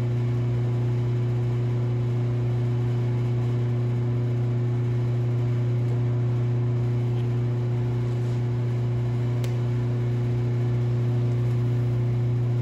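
A steady low mechanical hum that holds one pitch and level throughout, from a running machine such as a shop fan or compressor motor, with a single faint click about three-quarters of the way in.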